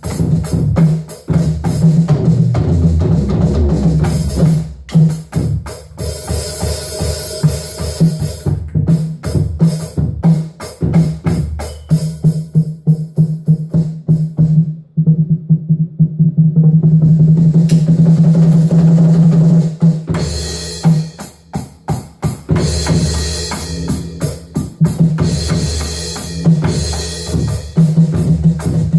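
Drum kit played freely with sticks: an improvised run of snare, tom and bass-drum strikes with cymbal crashes. About halfway through, a fast continuous roll on the low drums without cymbals, then the cymbals come back in.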